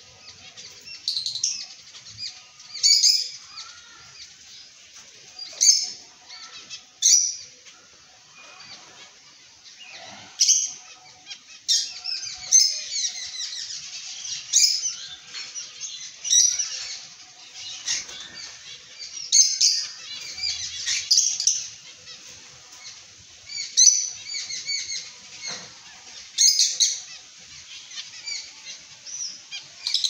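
Several caged zebra finches chirping in short bursts of calls every second or two, with sharp flutters and clicks now and then as they move about the cage.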